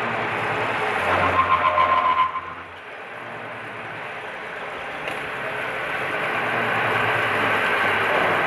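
Milling machine cutting ratchet teeth into forceps forgings under flowing coolant, a steady mechanical running noise. About a second in comes a louder, pulsing stretch with a whine lasting just over a second. The running noise then drops and builds slowly again.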